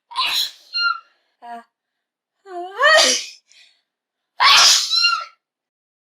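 Three human sneezes about two seconds apart, each a sharp 'achoo' under a second long; the last is the loudest.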